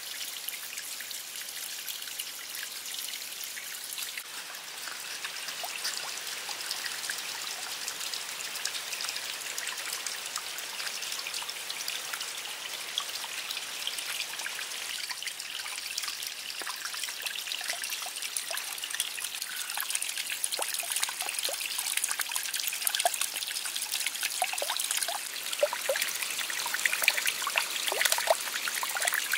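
Water trickling and splashing steadily down a small stone-lined stream channel into a garden pond, growing a little louder and more uneven near the end.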